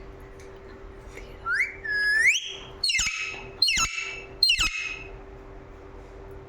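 Ringneck parrot whistling two rising notes, then giving three short, sharp calls about a second apart, each falling in pitch.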